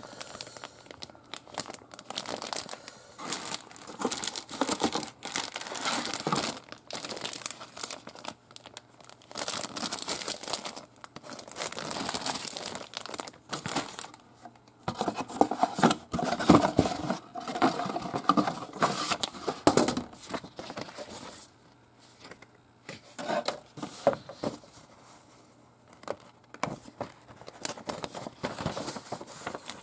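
Clear plastic bags holding plastic model-kit parts runners crinkling and rustling in irregular bursts as they are handled, along with paper sheets being handled.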